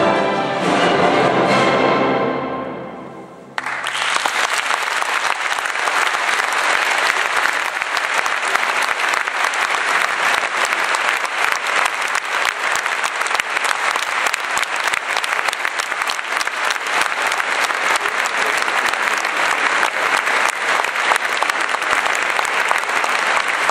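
Youth orchestra holding its final chord, which dies away about three seconds in. Then audience applause starts suddenly and continues steadily.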